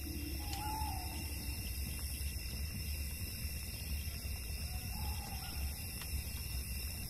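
Night-time outdoor ambience: a steady low rumble and hiss, with a short wavering bird call twice, about half a second in and again about five seconds in.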